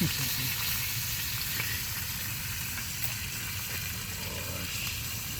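Fish frying in butter in a pan, sizzling steadily.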